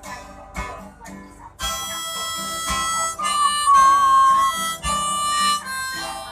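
Instrumental break in a song: acoustic guitar strumming, then a harmonica comes in about one and a half seconds in and plays a melody of held notes over the guitar.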